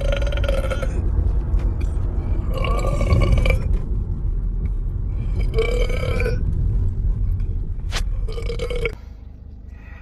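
A man burping four times, each burp drawn out for up to about a second at a fairly steady pitch, over a low steady rumble that cuts off suddenly about nine seconds in. A single sharp click comes just before the last burp.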